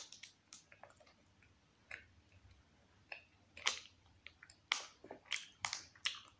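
Close-mouthed chewing of a bite of ice cream bar: faint, irregular wet clicks and soft crunches that come more often and louder in the second half.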